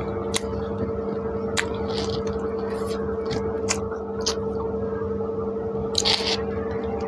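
Close-miked eating: pav bread scooped through soft bhaji and chewed, with wet squishing and a handful of sharp mouth clicks and smacks, the longest wet spell about six seconds in. A steady low hum runs underneath.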